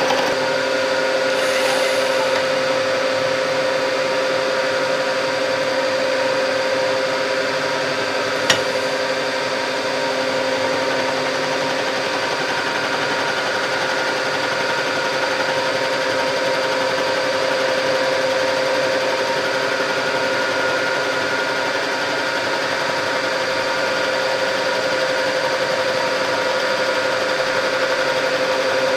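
Bridgeport vertical milling machine running with its end mill taking a slow-feed finishing pass across an aluminum mold half: a steady motor hum with a constant tone over it. A single sharp click about eight and a half seconds in.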